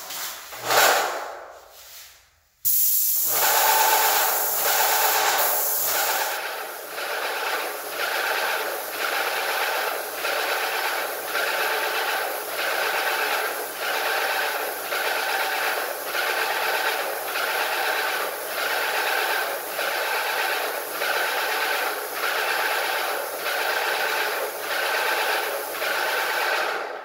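Airless paint sprayer gun spraying paint onto a wall: a loud, steady hiss that starts suddenly a couple of seconds in and cuts off just before the end, pulsing in an even rhythm of roughly one and a half beats a second. A brief rushing sound comes before it.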